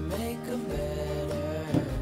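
Background music with held notes and a bass line, and one short sharp knock near the end.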